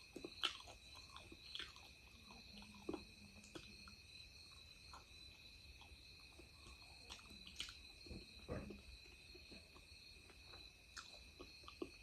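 Quiet eating of chicken: soft scattered chewing clicks and mouth smacks, a few louder ones about half a second in and near eight and a half seconds. Beneath them runs a faint steady high tone.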